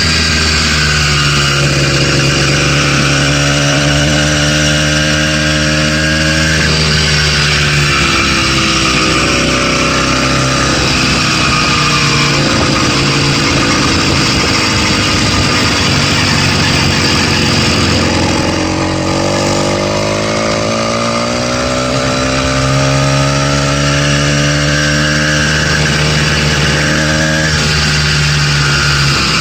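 Stock 80cc two-stroke bicycle kit engine running under way, its pitch rising and falling as the throttle is opened and eased, with a brief let-off about two-thirds through. The owner takes its knock for a rod knock in the brand-new engine.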